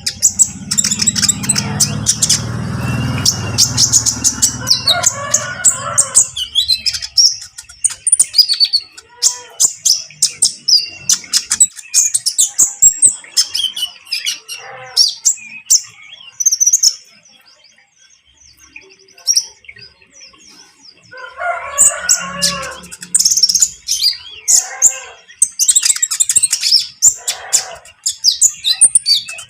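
Olive-backed sunbird (kolibri ninja) singing in trotol style: rapid, high, twittering trills and chirps in repeated bouts, with a short lull past the middle. A lower, rougher sound runs under the song for the first few seconds and again briefly about two-thirds of the way through.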